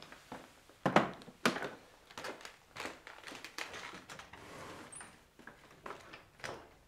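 Footsteps on a wooden floor and an interior door being handled and shut: a string of irregular knocks and clicks, the loudest two about a second in.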